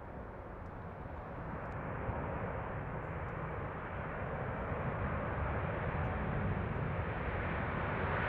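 Jet airliner's engines: a steady rushing noise that grows gradually louder.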